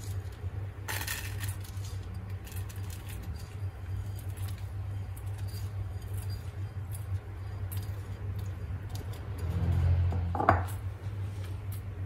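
Buttery biscuit crumbs tipped from a bowl into a stainless steel cake ring, with light clinks and taps of the bowl and spatula against the metal. A louder knock with a brief ring comes near the end. A steady low hum runs underneath.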